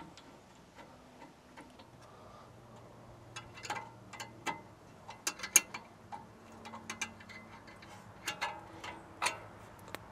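Light metallic clicks and clinks in irregular clusters from a wrench turning the rear brake caliper's slide pin bolts back in.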